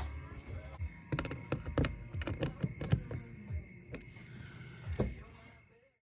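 Irregular sharp clicks and knocks of plastic bumper trim and clips being handled and pressed into place on a truck's headlight assembly. They fade out near the end.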